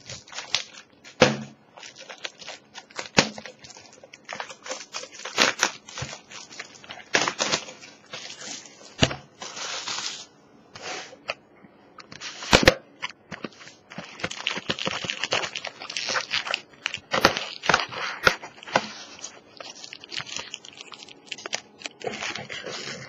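Plastic wrapping crinkling and tearing, with cardboard rustling, as a Pokémon trading card booster box is unwrapped and opened by hand. The crackling is irregular and continuous, with a few sharper snaps.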